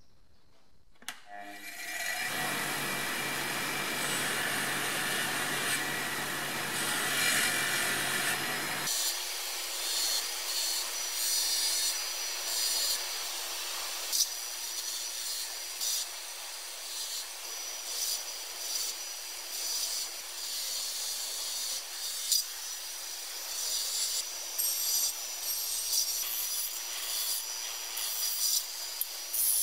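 Bench grinder with a large steel wire wheel, switched on about a second in and running, while shot-blasted metal mincer parts are pressed against it. The wire brushing gives a steady scratching with repeated rasping strokes, polishing the bare metal back to a shine.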